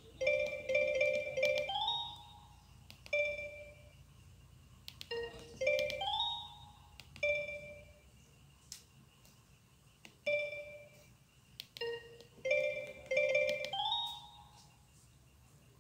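Mobile phone ringtone from the Kyocera DuraXE: a short melody of bright, quickly repeated notes with little upward slides, repeating several times with short pauses between phrases.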